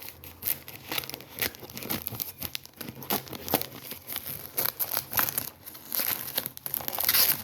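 Packaging crinkling and tearing in quick, irregular crackles as it is cut open little by little.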